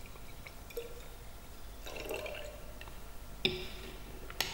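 Dilute hydrochloric acid trickling and dripping from a glass measuring cylinder into a conical flask of sodium thiosulfate solution. About three and a half seconds in, a sharp glassy clink as the cylinder is set down, then a sharp click near the end as the stop-clock's start button is pressed.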